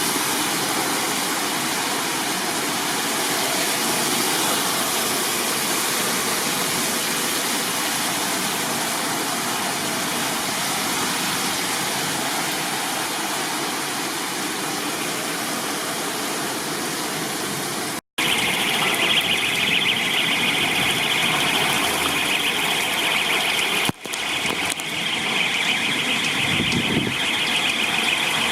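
Heavy storm rain and wind as a steady loud rushing noise. About two-thirds of the way in, after a sudden break, a high-pitched alarm sounds steadily over the storm noise.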